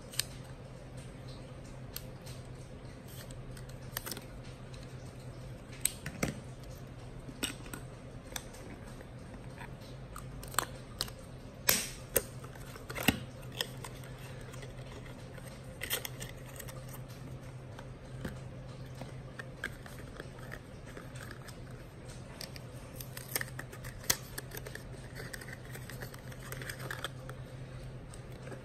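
Irregular clicks, taps and light rattles of a cardboard film box being opened and small plastic 35 mm film canisters being handled, with a low steady hum underneath.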